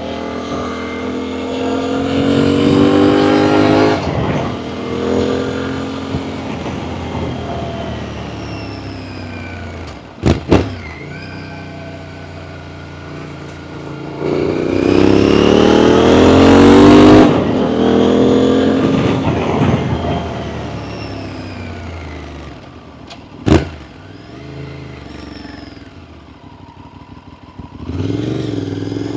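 Aprilia Tuareg 660's parallel-twin engine through an Akrapovic full exhaust system, accelerating hard twice with the pitch climbing and then falling away as it rolls off. Two sharp cracks come about ten seconds in and again near the end. The engine drops low and then starts climbing once more at the very end.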